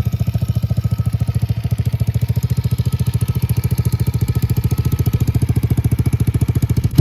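2022 Yamaha TTR110's single-cylinder four-stroke engine idling steadily through a BBR D3 full aftermarket exhaust, with fast, even exhaust pulses.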